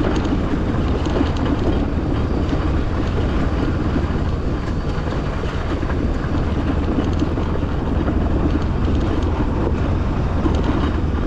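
Motorcycle riding down a rough, rocky dirt track: a steady low rumble of the bike and its tyres on loose stones.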